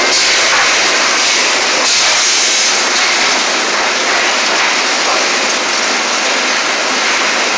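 Sawmill machinery running: a loud, steady din without a clear pitch, from the chain conveyors and mill equipment moving logs along the saw line.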